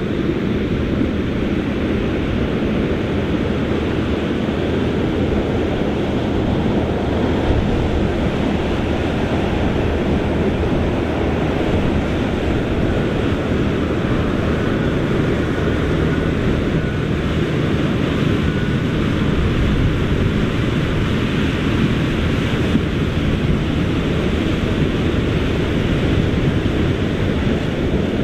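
Tractor engine working steadily under load while its big tyres churn through standing water and mud, with continuous sloshing and splashing.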